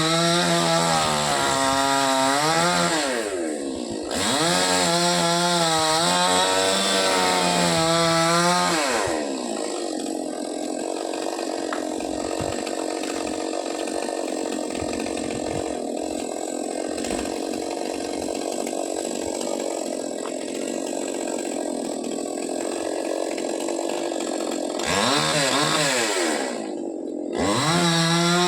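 Chainsaw revving up and down for several seconds, then cutting steadily through a coconut palm trunk under load for about fifteen seconds, then revving up and down again near the end.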